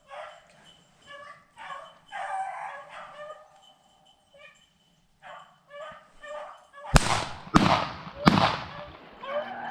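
Beagles baying on a rabbit's trail, then three gunshots in quick succession about seven seconds in, each a little over half a second apart, fired at the running rabbit and missing it.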